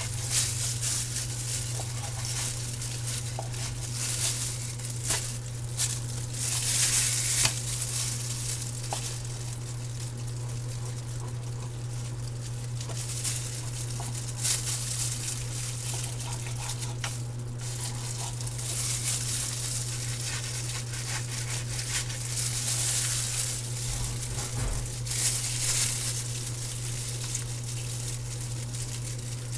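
Loose plastic disposable gloves crinkling in irregular bursts as hands cut and pull apart raw chicken, with a few small clicks of the knife on the cutting board, over a steady low hum.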